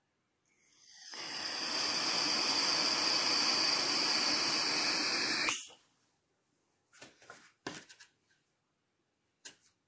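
A steady hiss lasting about five seconds that stops abruptly, followed by a few faint clicks.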